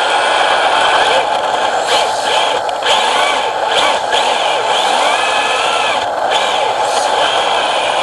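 Onboard sound of a radio-controlled drift car: the electric motor and gears whine, rising and falling in pitch with the throttle, over a steady rushing noise. Voices murmur in the background.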